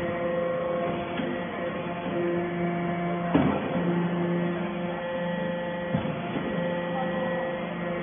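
Hydraulic power unit of a metal-chip briquetting press running with a steady hum. A sharp clunk comes about three and a half seconds in and a lighter knock near six seconds.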